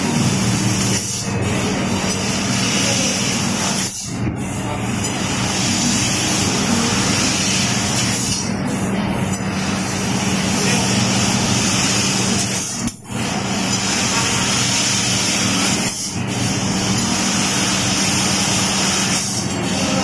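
Fiber laser cutting machine cutting sheet steel: a steady hiss of cutting and sparks over a steady machine hum, broken by short gaps about six times as the cut stops and restarts.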